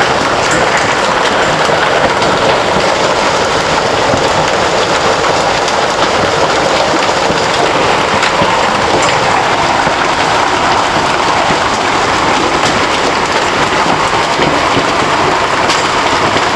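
Heavy hailstorm: hailstones and rain pelting down in a steady, dense hiss, with scattered sharper clicks of single stones striking.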